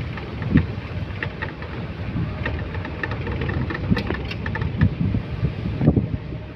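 Open-top safari jeep driving on a rough dirt track: its engine running under a steady low rumble, with many short knocks and rattles from the vehicle jolting over the road.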